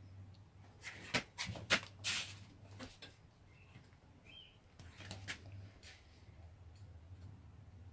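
Sharp clicks and scrapes of fingernails and then a knife blade picking at a coin glued to a concrete floor, trying to pry it up. The clicks come in a cluster about a second in and a few more about five seconds in.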